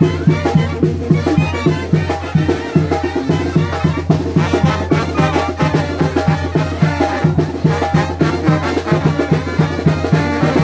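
Upbeat Latin dance music with a steady, quick bass beat and percussion.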